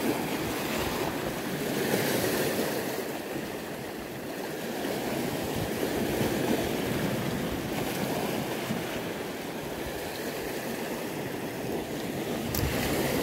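Sea surf breaking and washing over a rocky, pebbly shore in a choppy sea: a steady rushing that swells about two seconds in and again around six seconds.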